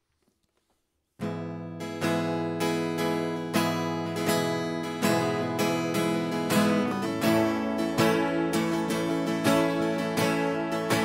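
Acoustic guitar strummed in a steady rhythm of chords, about two strokes a second, starting abruptly about a second in after near silence.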